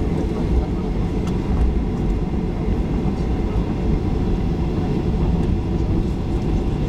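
Boeing 737 rolling out along the runway after landing, heard from inside the cabin as a steady low rumble.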